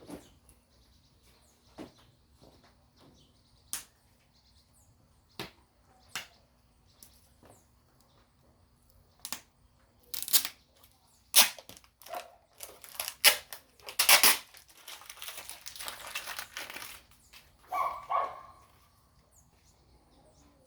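Sharp, scattered clicks and knocks of washing machine parts and tools being handled, turning into a dense run of loud clatters and rustling about halfway through, with a brief higher-pitched sound near the end.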